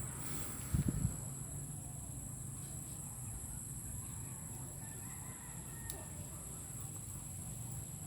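Backyard poultry calling faintly, with a couple of low thumps about a second in. A steady high hiss runs underneath.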